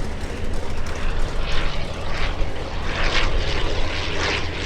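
Propeller-driven piston aero engines of a Fokker Dr.I triplane and a Fokker D.VII biplane flying past in a display: a steady drone with several swells of rushing noise.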